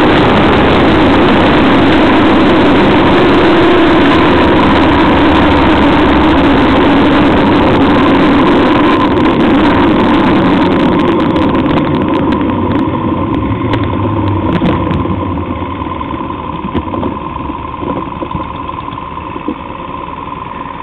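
Heavy wind rush over the microphone with a motor vehicle's engine running steadily at road speed. The noise eases gradually over the second half as the speed drops.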